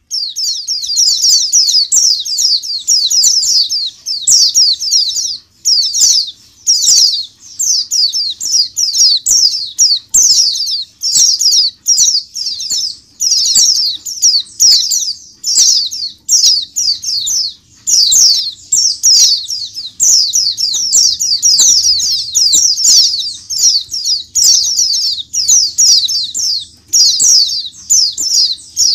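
A large caged flock of white-eyes (pleci) calling and twittering all together: a dense, unbroken stream of high-pitched chirps and trills, with light clicks of birds hopping and fluttering on the perches.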